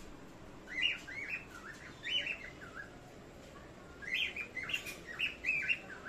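Small pet parrots chirping: two runs of short, quickly repeated calls, one in the first half and another near the end, with a short pause between them.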